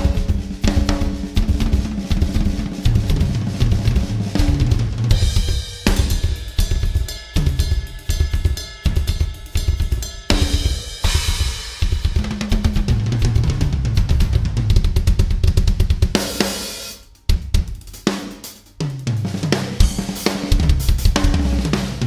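Solo drum kit improvisation on a large kit with Evans-headed toms and Zildjian cymbals, played with sticks. Busy strokes run around the toms, snare and bass drum, with cymbals and hi-hat ringing over them. The playing briefly drops away about seventeen seconds in, then comes back.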